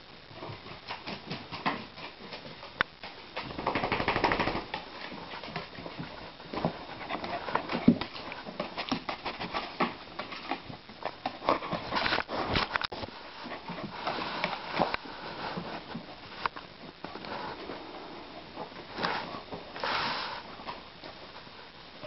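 A small dog and a cat scuffling about on a wooden floor right by the microphone: irregular sharp clicks and knocks of paws, with noisy bursts of fur brushing against the camera, loudest about four, twelve and twenty seconds in.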